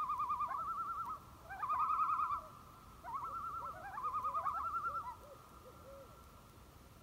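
Common loon giving its tremolo call, a rapid quavering laugh repeated in three bursts.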